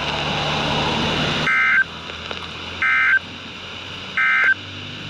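Emergency Alert System SAME digital data tones: three identical short, raspy, buzzing bursts about 1.4 s apart, after a second and a half of radio hiss. Bursts this short are the end-of-message code that closes a weather warning.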